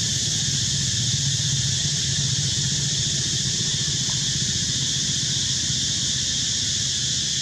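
Steady outdoor background noise: an even high hiss over a low rumble, unchanging throughout, with no distinct calls or knocks.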